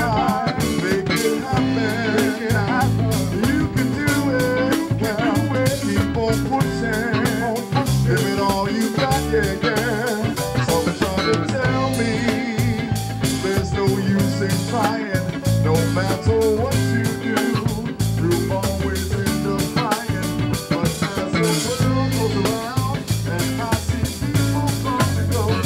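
Live band playing a funk-blues groove: electric guitars over bass, drum kit and keyboard, with a steady beat.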